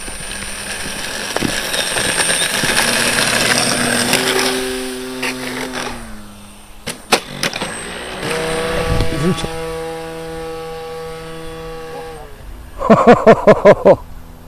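RC foam plane's motor and propeller running, its pitch falling about four seconds in, a few sharp knocks near the middle, then a steady hum. Near the end comes a loud burst of about six rapid pulses.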